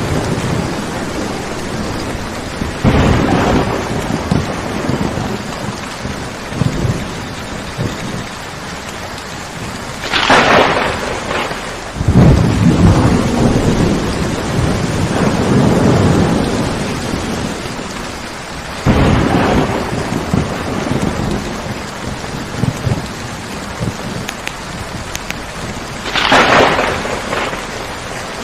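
Steady heavy rain with thunder: several loud claps and rolls come and go over the rain, with a sharp crack about ten seconds in and another near the end, and a long low rumble between them.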